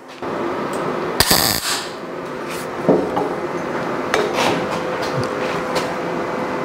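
Hammer knocks and taps on sheet-steel fender panels over a steady workshop hum: one loud ringing metallic hit a little over a second in, then a few lighter knocks.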